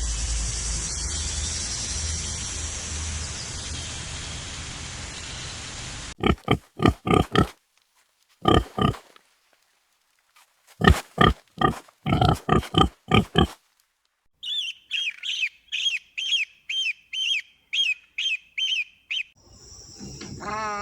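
A succession of animal sounds. About six seconds of steady noisy hiss, then runs of short, pitched pig squeals and grunts in quick groups. Then a string of high chirps, about three a second, and near the end a high steady trill.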